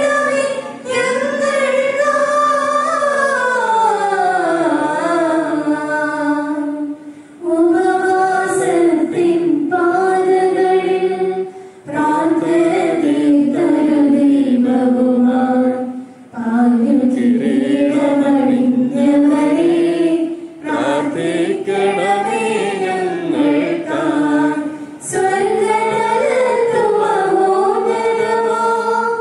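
A group of voices singing a slow church hymn in long held phrases, with short breaks between lines every four to five seconds.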